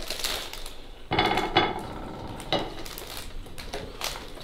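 Kitchen clatter: crockery and utensils clinking and knocking, with a few sharp clicks around a microwave. A brief tone-like sound about a second in is the loudest part.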